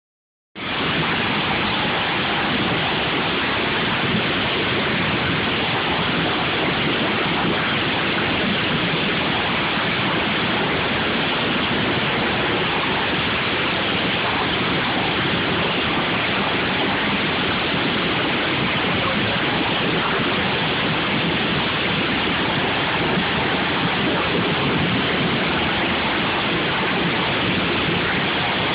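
Many lawn mower engines running together in a derby heat, a loud, steady, dense din that starts just after the opening half second.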